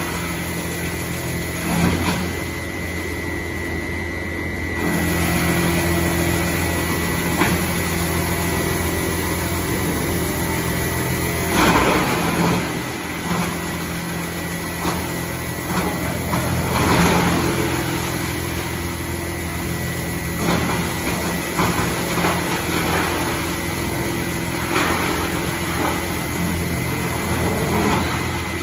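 Drum wood chipper running with a steady engine drone, with several short, louder bursts on top.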